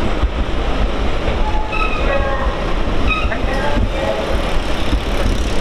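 A train running on the station tracks: a steady rumble, with a few short high squeals from the wheels about two and three seconds in.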